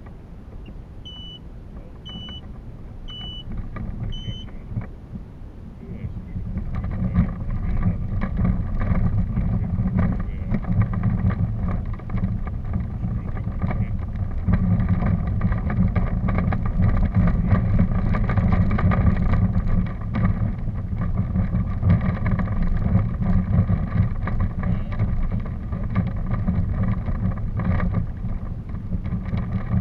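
Four short high beeps about a second apart, then a steady, rough rumble of a vehicle moving along a woodland track, with wind on the microphone.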